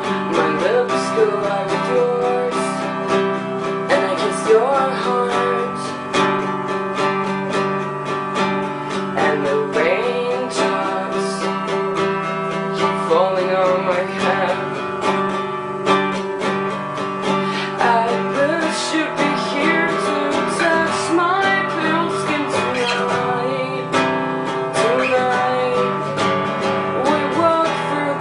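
Acoustic guitar music, strummed steadily, with a wavering melody line over it.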